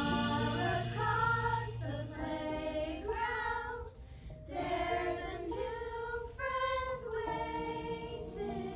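A group of young girls singing a gentle song together in sung phrases, with a short break about four seconds in.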